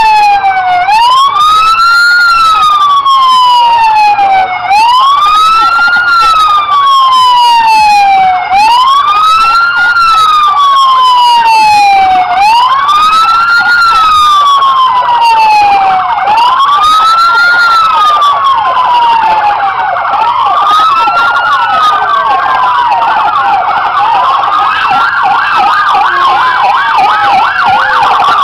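Police SUV's siren sounding a slow wail, each rise and fall taking about four seconds. From about twenty seconds in, a second siren's wail overlaps it out of step.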